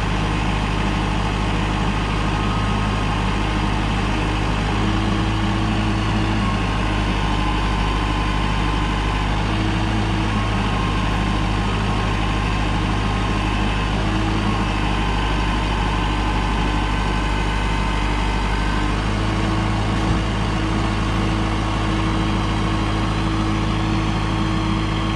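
Kubota compact tractor's diesel engine running steadily under load while its front loader lifts a log. The engine note shifts slightly in pitch a few times.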